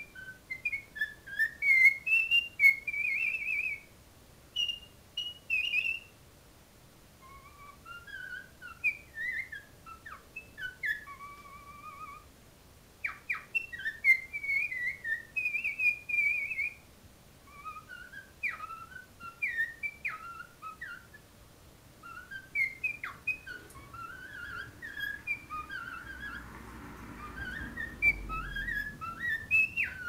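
Pet cockatiel whistling its song: phrases of short whistled notes that rise and fall in pitch, mixed with sharp chirps, broken by brief pauses.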